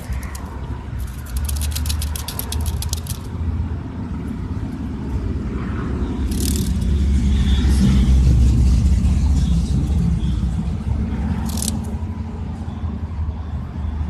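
A cicada gives a rapid clicking, buzzing rattle for about two seconds, starting about a second in. Under it runs a low rumble that swells toward the middle and fades again, with a couple of short hissy scuffs later on.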